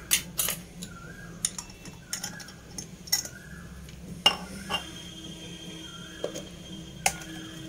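Scattered clinks and knocks of a steel spoon against small steel bowls, with the loudest knock about four seconds in.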